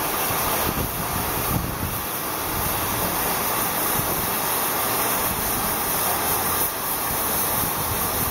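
Steady rushing noise with gusty wind buffeting on the microphone, over the hiss of an open-air shipyard.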